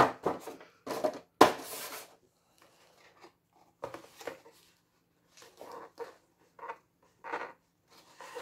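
Clear plastic blister tray and cardboard packaging of an action figure being handled on a wooden table: crinkling, rustling and light knocks, with the loudest crackle about a second and a half in and softer handling noises after.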